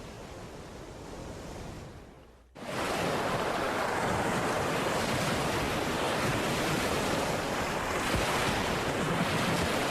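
Ocean surf and wind: a soft, even rush for about two and a half seconds, then after a sudden break a much louder, steady wash of waves that continues without let-up.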